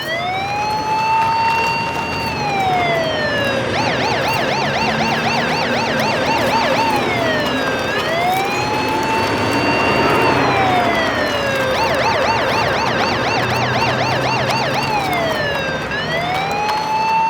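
Electronic siren sound cycling between a slow wail that rises, holds and falls, and a fast yelping warble, repeating about every eight seconds.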